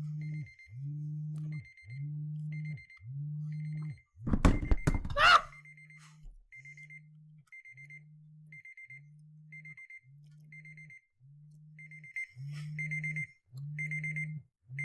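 Timer alarm going off at the end of a one-minute timed round: a string of evenly spaced, low, buzzy beeps, a little under two a second, fainter for a stretch in the middle and louder again near the end. A brief loud noise breaks in about four seconds in.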